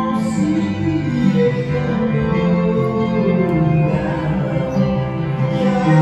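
Recorded music with long held notes and a singing voice, playing without a break.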